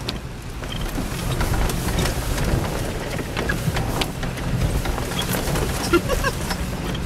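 Inside the cab of a Jeep Cherokee XJ driving slowly over a rough, wet dirt trail: a steady low engine and tyre rumble, with scattered small clicks and knocks throughout.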